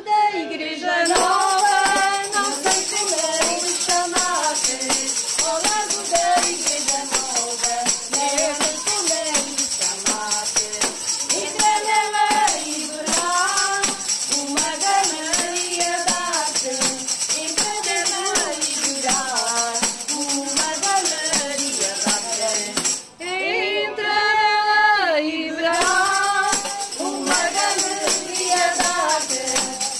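Women singing a folk song together, accompanied by tambourines shaken and struck in rhythm. The tambourines come in about a second in and drop out briefly near the end while the singing carries on.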